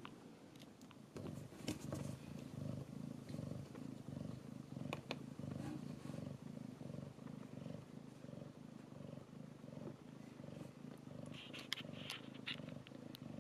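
A cat purring in a steady, even rhythm, starting about a second in, with a few faint clicks and a short cluster of brief high squeaks near the end.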